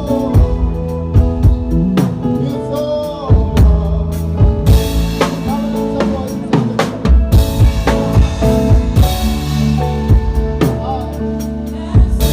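A live band playing an instrumental worship song: drum kit with regular kick and snare hits and several cymbal washes over held bass and chord tones.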